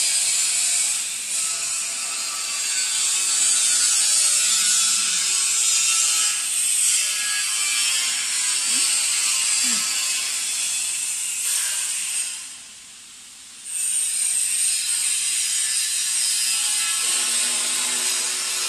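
Hand ratchet wrench clicking as a bolt on the heat press frame's bearing mount is tightened. The sound is steady and breaks off for about a second and a half about two-thirds of the way through.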